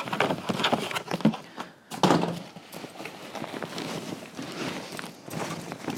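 Packing material and stroller parts being handled in a cardboard box: rustling with scattered knocks and thuds, and a sharper knock about two seconds in.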